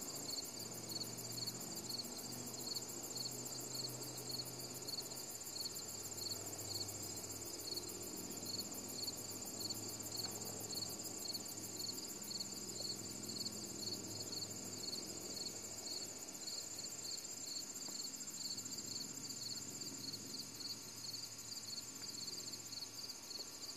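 Chorus of evening insects: a steady high trill with a chirp repeating a few times a second beneath it.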